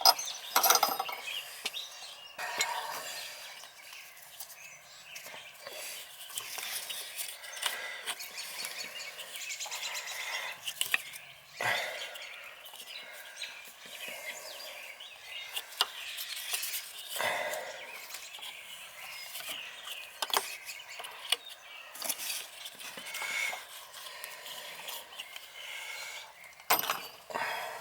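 Small metal plumbing fittings and hand tools clinking and scraping as the parts of an outdoor shower valve kit are handled and fitted, with a few sharp knocks.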